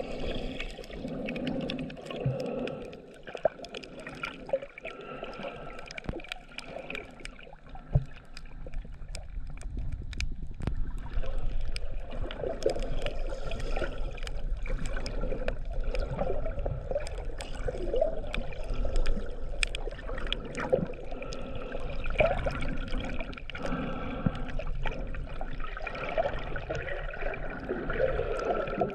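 Underwater sound through a submerged GoPro Hero 7 Black over a shallow reef: water sloshing and gurgling, with many sharp clicks and crackles throughout. A low rumble of moving water comes in about eight seconds in.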